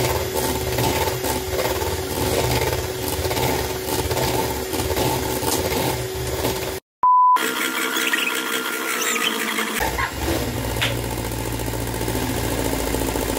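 Electric hand mixer running steadily in a metal bowl. About halfway through the sound drops out for an instant and a short, loud, single-pitch beep sounds; the mixer's low hum is missing for a few seconds after it and then comes back.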